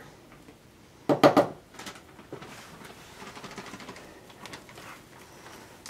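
Plastic bag of powdered sugar crinkling as it is handled and opened, with a loud burst of crinkling about a second in, then lighter irregular rustling.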